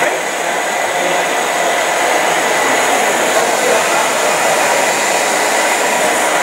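A steady mechanical whir with a faint thin whine held through it.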